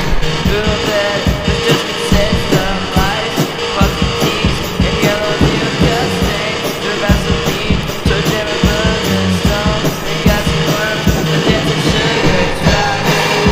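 Loud rock music with electric guitar and drums keeping a fast, steady beat.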